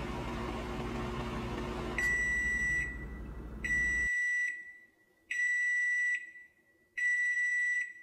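Microwave oven running with a steady hum, then its end-of-cycle beep sounding four times, each long high beep under a second and evenly spaced. The hum cuts off about four seconds in, during the beeping.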